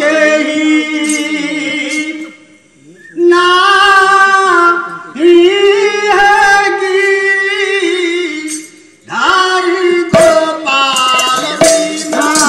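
A woman singing a devotional Odia Pala bhajan solo, in long held phrases with short breath pauses between them. Near the end a few sharp percussion strikes come in.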